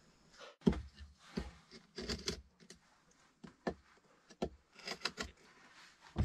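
A series of irregular knocks and thumps, about ten of them, some with a heavy low thud.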